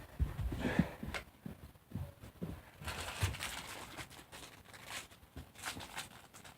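Irregular light knocks and clicks of plastic toy trains being handled and moved, with a brief rustle about three seconds in.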